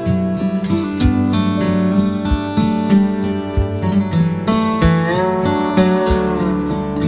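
Background music: acoustic guitar picked and strummed, with a few notes sliding in pitch.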